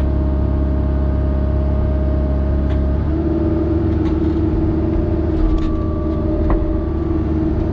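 Hydraulic excavator's diesel engine running steadily, heard from inside the cab. About three seconds in, the engine tone shifts and firms up as the hydraulics take up the load of a precast concrete pier hanging by a chain from the bucket, with a couple of light knocks later on.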